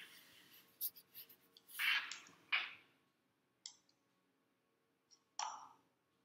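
Handling noises from a clipboard and writing: about six short scrapes and clicks, bunched in the first three seconds with two more later, separated by quiet.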